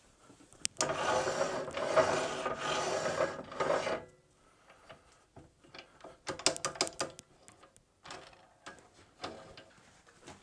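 Metal parts of a lathe being handled and fitted back together: a rough, grating scrape in several strokes for about three seconds, then a scatter of clicks and light knocks.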